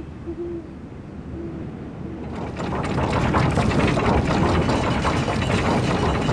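Iron chains of a city-gate drawbridge clattering quickly through their winch as the drawbridge is lowered, over a low rumble. The clatter starts about two seconds in and grows louder.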